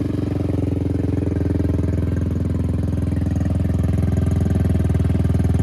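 Hero HF Deluxe motorcycle's single-cylinder four-stroke engine idling through a newly fitted RX100-style aftermarket silencer, with an even, fast pulsing exhaust beat. It gets slightly louder toward the end. The silencer joint is now sealed, and the earlier leak noise from it has stopped.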